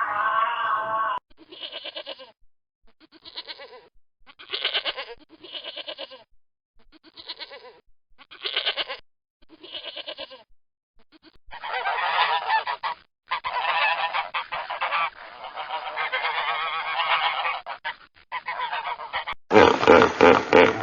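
Geese honking: a run of short honks in separate bursts, then denser honking. Near the end a different, louder animal sound cuts in.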